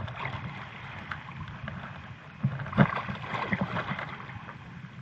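Shallow lake water splashing and sloshing, with a cluster of louder splashes and knocks about two and a half to three and a half seconds in.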